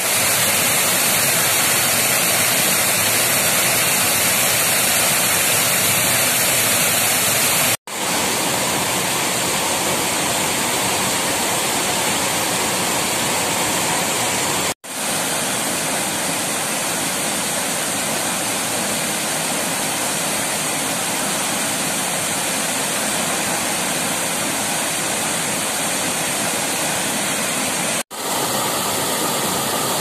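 Waterfall rushing into a rock pool: a steady, loud roar of falling water that cuts out for an instant three times.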